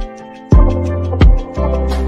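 Background music with a steady beat, about one strike every 0.7 seconds, over sustained bass notes.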